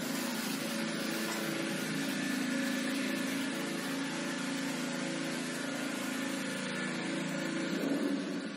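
Motor of a vacuum steam-ironing table and boiler unit running steadily: an even hum under a broad hiss.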